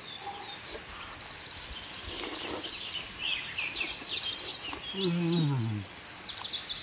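Jungle ambience with birds chirping, and a high, fast trill lasting about two seconds near the start. About five seconds in comes a short, low, voice-like sound that falls in pitch.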